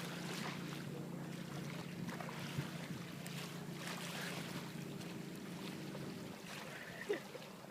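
Boat motor running with a steady low hum that fades out about six seconds in, over faint wind and water noise.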